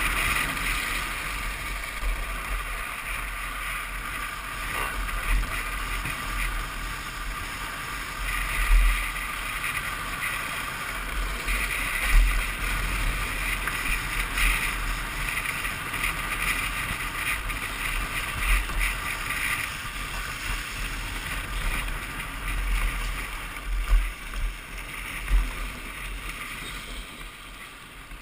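Wind buffeting a helmet-mounted camera's microphone during a downhill drift-trike run, over the rushing hiss of the trike's wheels rolling and sliding on asphalt, with several brief louder gusts.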